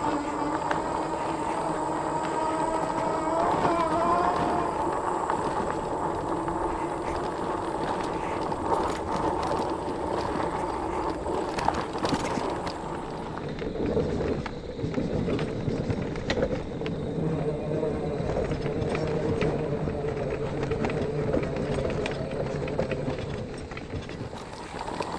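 Magicycle 52-volt, 750-watt fat-tire e-bike under way on a bumpy dirt trail: a steady whine from the motor and knobby tires over rolling rumble, with short knocks as it hits bumps. The whine's pitch shifts about halfway through.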